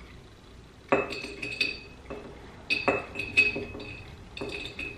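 A spoon clinking against a bowl as chopped toasted pecans are scooped out and tipped into a glass mason jar. Several separate clinks, each ringing briefly, come about a second apart from about a second in.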